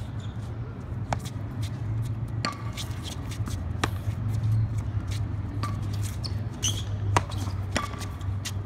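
Pop tennis rally: a tennis ball struck back and forth with paddles and bouncing on the hard court, sharp knocks every second or so, over a steady low hum.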